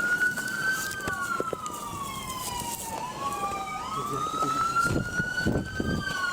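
Emergency vehicle siren in wail mode, its pitch rising and falling slowly in a cycle of about three seconds, with a few dull bumps of handling about five seconds in.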